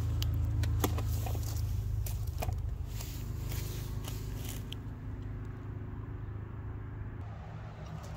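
A motor vehicle's engine running with a steady low hum that gradually grows quieter, with a few sharp clicks and taps scattered over it.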